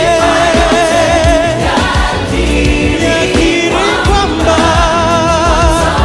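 Live gospel worship song in Swahili: a choir and lead singers holding long notes with vibrato over keyboards and a steady beat.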